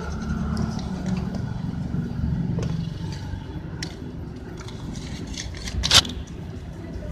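Steady low vehicle rumble with scattered light clicks, and one sharp knock about six seconds in.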